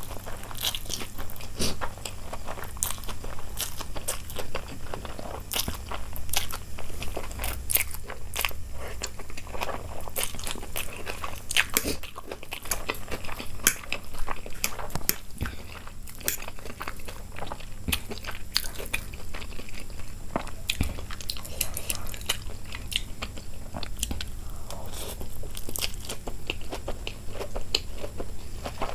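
A person chewing and biting food close to the microphone: wet, irregular mouth clicks and crunches, with no let-up.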